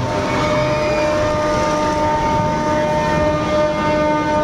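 Several horns or whistles held together as long, steady, overlapping tones, sounding as a new ship is launched, over a dense noisy wash.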